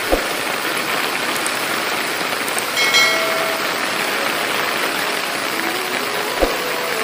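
Heavy rain coming down as a steady, even hiss. A brief high-pitched tone sounds about three seconds in, and there are two short thumps, one at the very start and one near the end.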